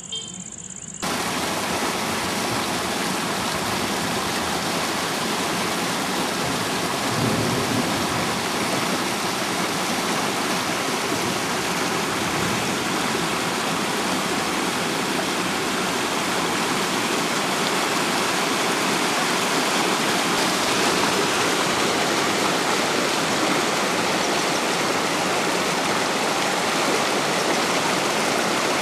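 Rain-swollen stream rushing over rocks in whitewater: a steady, loud rush of water that starts abruptly about a second in.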